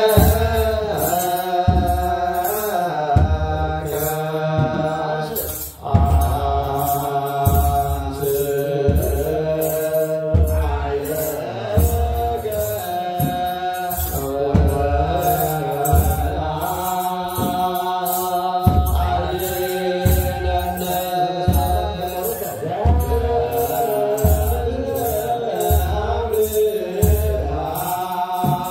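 Ethiopian Orthodox liturgical chant sung by a group of voices over a steady drum beat, about one and a half beats a second, with a short break about six seconds in.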